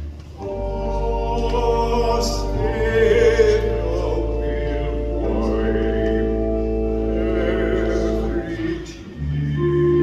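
Baritone solo voice singing a hymn with vibrato over sustained organ chords and a steady low bass note. The music dips briefly about nine seconds in as the chord changes.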